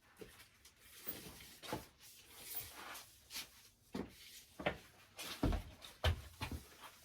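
Scattered knocks, clicks and rustling of things being handled in a small room, with a few heavier low thumps near the end.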